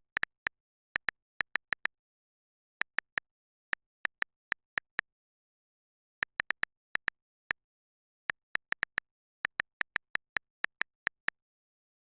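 Phone on-screen keyboard key-press sounds: short identical clicks in quick irregular runs with pauses, like someone typing.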